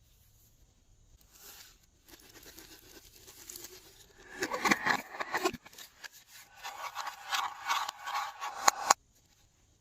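Close-up handling sounds: two runs of crackly, sticky clicks and pops, the second ending abruptly about nine seconds in.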